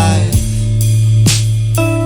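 A band playing a song: a held low bass note under a wavering melody, with drum hits about a second apart.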